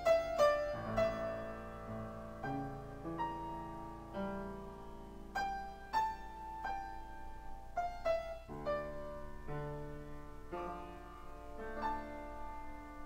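Solo piano playing a slow piece, with single notes and chords struck about once a second and left to ring out.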